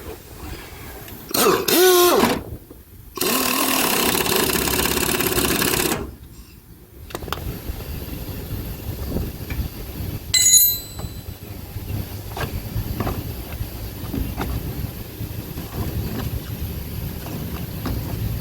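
A power tool runs twice, once briefly with a wavering pitch and then steadily for about three seconds, driving a nut and lock washer onto a seat-belt anchor bolt. About ten seconds in comes one sharp, ringing metal clink, and after it light knocks of tools being handled.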